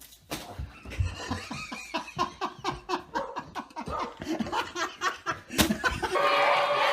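A person laughing hard in a long run of quick, repeated bursts, about four a second. Near the end a crowd starts shouting.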